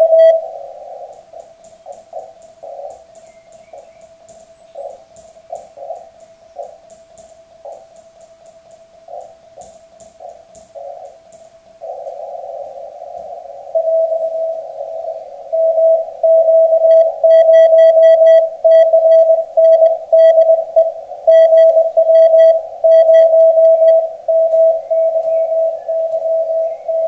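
Morse code (CW) tone from an amateur radio receiver on the 40 m band. For the first half, weak keyed signals sit in band hiss. About halfway through the hiss rises, and a little later a strong single-pitch Morse signal starts keying steadily and runs on.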